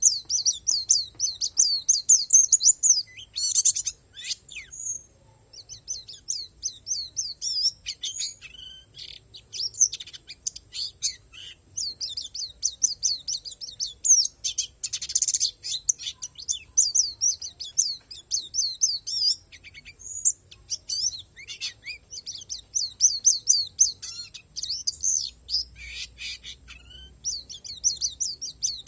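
White-eye (pleci, the 'palas Borneo' type) singing a long, fast twittering song of short high-pitched notes in rapid runs, broken by brief pauses.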